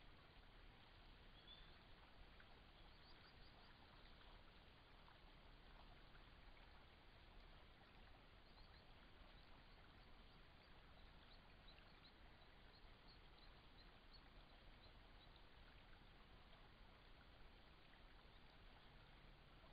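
Near silence: the steady faint hiss of a trail camera's microphone, with scattered faint, short high chirps every now and then.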